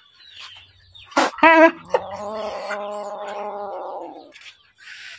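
A sharp knock, then a short wavering animal cry, followed by one long, steady animal call lasting about two seconds.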